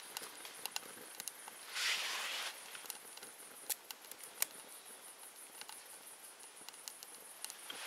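Wood crackling as it burns in a small woodgas camp stove: scattered sharp pops and snaps, with a brief rushing hiss about two seconds in. Insects chirp steadily behind it, a high-pitched even pulsing.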